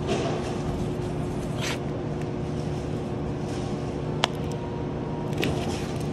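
Steady low hum of a store's refrigerated display case and aisle, with plastic-wrapped chicken trays rustling and scraping as they are handled. One sharp click comes about four seconds in.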